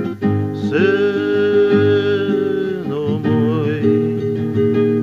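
Male voice singing, sliding up into a long held note about a second in and holding it for about two seconds, then a wavering phrase, over continuous acoustic guitar accompaniment.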